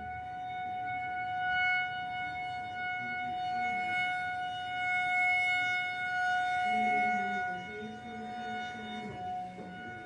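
Outdoor tornado warning siren sounding its scheduled monthly test: one steady held tone, swelling and fading in loudness several times.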